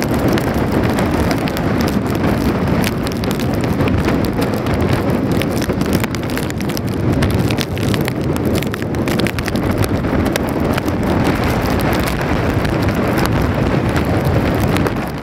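Hurricane-force wind rushing and buffeting the microphone, with rain falling on the street.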